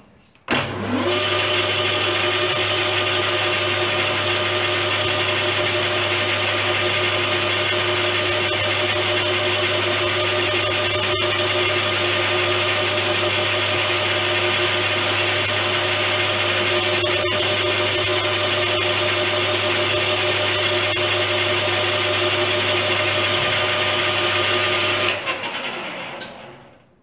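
Bench metal lathe starting up about half a second in, its motor and gears running up to speed with a brief rising whine, then running steadily with a low hum and a whine while the face of a crankshaft distance piece is machined. It is switched off a couple of seconds before the end and runs down to a stop.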